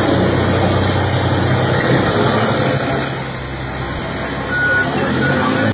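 Heavy diesel engine of a large mining haul truck running steadily, with two short high beeps near the end.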